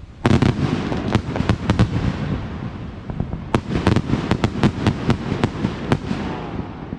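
Aerial fireworks bursting close by. A loud boom about a third of a second in is followed by rapid crackling pops over a low rumble, which die away near the end.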